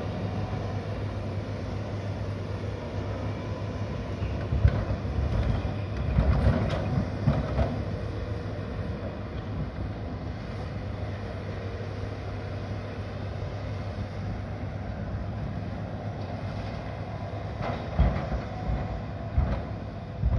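Diesel engines and hydraulics of two tracked excavators working earth, a steady low drone with a few louder thuds and surges about five seconds in and again near the end.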